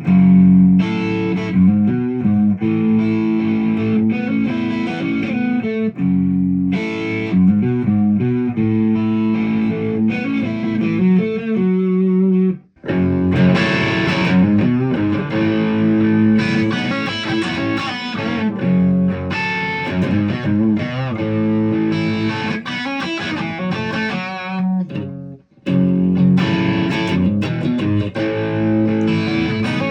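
Ibanez Prestige RG1070PBZ electric guitar being played through an amplifier, a run of single notes and chords, with two brief breaks about 13 and 25 seconds in.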